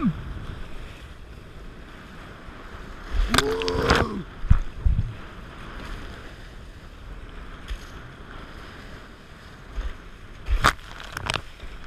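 Water rushing and splashing along the hull of a Dart 18 sailing catamaran under way, with wind on the microphone. A person calls out briefly about three and a half seconds in, a few dull knocks follow, and two sharp slaps of spray hit near the end.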